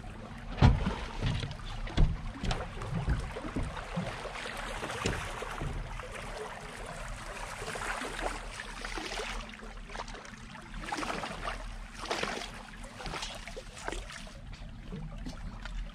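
Water lapping against the hull of a jet boat, with scattered knocks and thumps on the boat; the loudest is a sharp thump about half a second in.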